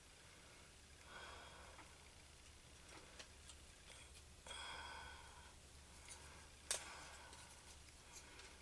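Near silence with soft breathing and a few faint clicks of slot-together dinosaur skeleton puzzle pieces being fitted by hand, with one sharper click about two-thirds of the way through.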